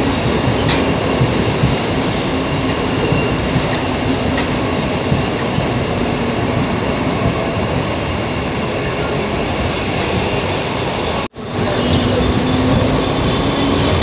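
Mumbai suburban local train (electric multiple unit) running along a station platform, heard from its open doorway: a steady loud rumble of wheels and running gear. A faint high pulsing tone repeats about two or three times a second through the first half, and the sound cuts out for a fraction of a second about eleven seconds in.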